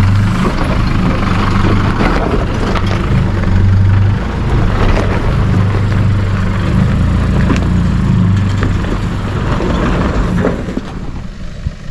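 A four-wheel drive's engine running low and steady as it crawls down a steep rocky track, with scattered knocks from rocks under the tyres; it quietens near the end.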